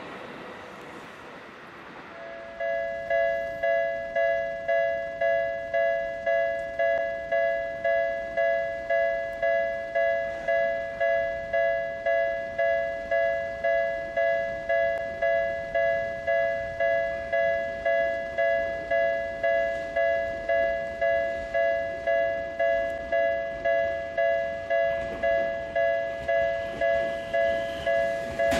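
A train running by briefly. Then, about two and a half seconds in, a railway level-crossing alarm starts ringing loudly: a steady two-tone electronic ding, about one and a half strikes a second, each dying away quickly.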